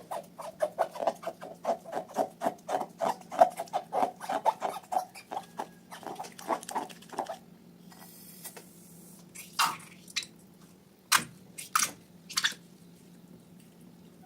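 Slime being squeezed and kneaded by hand, with quick wet squelching clicks at about four a second, then a pause and a few sharper isolated snaps and pops near the end.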